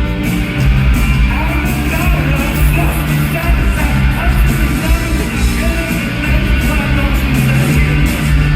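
Live rock band playing loudly, full band with a vocal line wavering over it.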